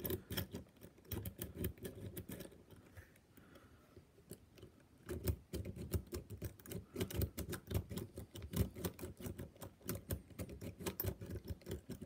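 Goso cross lock pick clicking and rattling in a cruciform cross-cylinder lock as it is plunged back and forth under counterclockwise tension: light, irregular metallic clicks, sparse for a few seconds, then coming thick and fast from about five seconds in.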